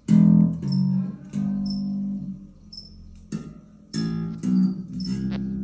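Electric bass played through an amplifier, single notes plucked one at a time and left to ring: a slow E minor scale played as a warm-up.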